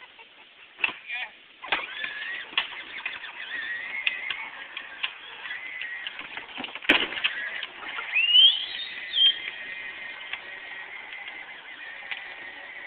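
Battery-powered ride-on toy Gator driving along, its small electric motor whining steadily. There are a few sharp knocks in the first seconds, a stronger one about seven seconds in, and a loud rising squeal soon after.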